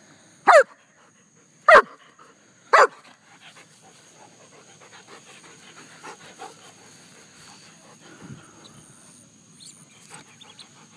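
German shepherd barking three short times in quick succession, each bark dropping in pitch, then panting with soft rustling in the grass.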